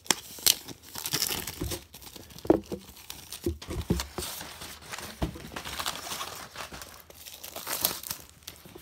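Plastic shrink wrap on a board game box being cut and torn off, crinkling and crackling irregularly with sharp little snaps.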